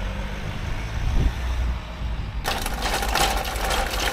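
A low rumble as a minivan pulls away, then, about two and a half seconds in, the loud, steady rattle of an airport luggage trolley's wheels rolling over paving.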